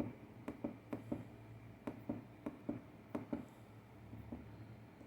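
Light, irregularly spaced clicks, about a dozen in the first three seconds or so and then stopping, from the controls of an engine-computer test bench being pressed while its menu is set up.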